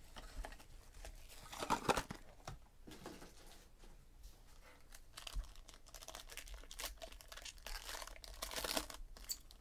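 Hands opening a cardboard trading-card box and tearing open the foil-wrapped card pack inside, the foil wrapper crinkling. There are a few short rustles in the first couple of seconds, then a longer stretch of crinkling and tearing near the end.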